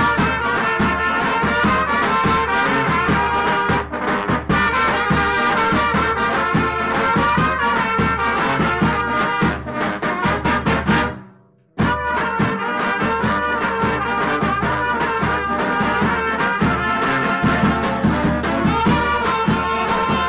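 Brass band music with trumpets and trombones. It fades out about eleven seconds in, stops briefly, then a new passage starts at full level.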